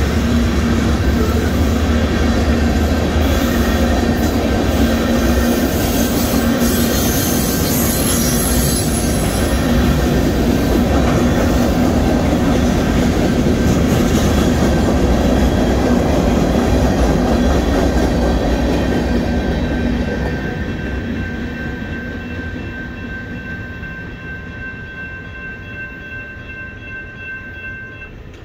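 Union Pacific freight train rolling through a grade crossing: a loud, steady rumble of wheels on rail that fades away over the last several seconds as the end of the train passes. A steady high ringing tone carries through and stands out as the rumble dies.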